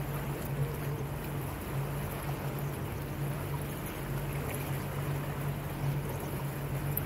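Small motor cruiser's engine running at a steady low hum under way at slow speed, with a continuous wash of water and wind noise.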